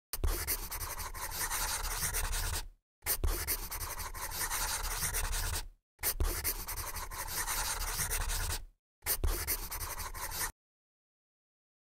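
Felt-tip marker scratching as it writes, in four nearly identical stretches of just under three seconds each with brief gaps, the last one shorter and stopping abruptly.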